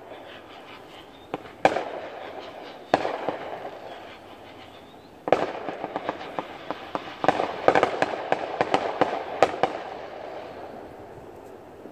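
Aerial fireworks going off: two single sharp bangs, then a little past the halfway point a quick string of crackling pops. Each report trails off in a slow rolling echo.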